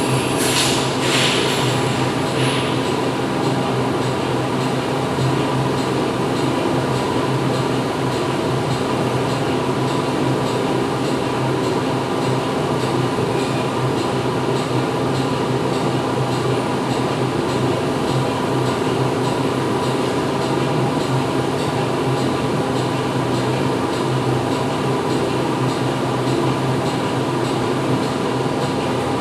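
Steady mechanical drone with a low hum and several steady tones over even noise, recorded as a white-noise background. A few brief hissing sounds come in the first two seconds.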